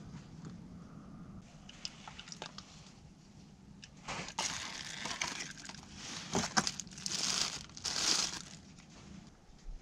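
Clear plastic wrapping crinkling and rustling in the hands as a small part is unwrapped, in irregular bursts from about four seconds in until near the end.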